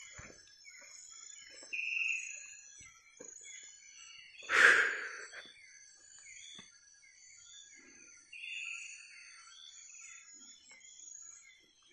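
Night rainforest animal chorus: a steady high insect trilling with many short chirping calls repeating over it. One brief loud noisy sound comes about four and a half seconds in.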